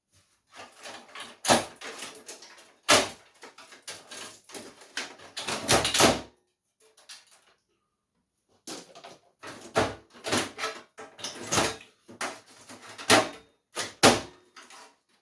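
Clatter and sharp knocks of metal and plastic parts being pried and pulled out of a desktop PC case. It comes in two busy stretches with a pause of about two seconds in the middle.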